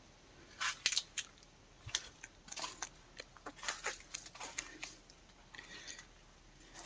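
Footsteps crunching on dry leaves and twigs: irregular dry crackles for about four seconds, then fading to faint background.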